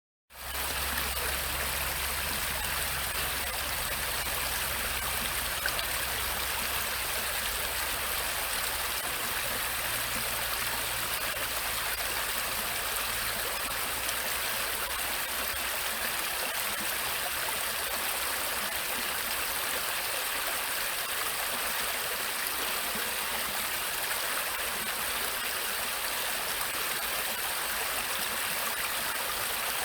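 Brook water flowing steadily over rocks, an even rushing babble.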